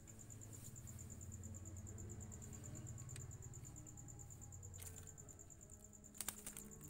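Faint, steady high-pitched trill of a cricket, an even pulse repeating several times a second, with a few sharp clicks, the loudest about six seconds in as a hand reaches into the cage.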